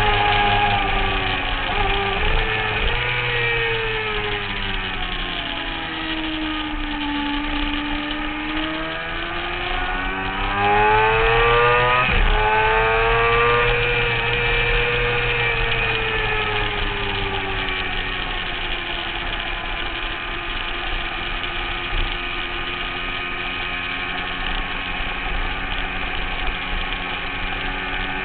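Motorcycle engine at speed on a racetrack, heard onboard: the engine note drops over the first several seconds, climbs quickly as it accelerates about ten seconds in, then sinks slowly through the rest.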